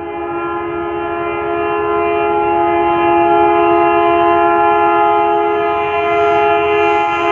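Long, unbroken air-horn blast from an approaching Indian Railways WDM-3D ALCO diesel locomotive, two steady notes sounding together, growing louder over the first few seconds and then holding.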